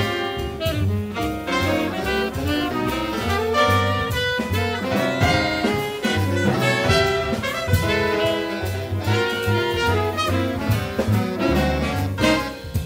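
Jazz ensemble playing, with horns carrying the melody over a moving bass line and percussion strokes.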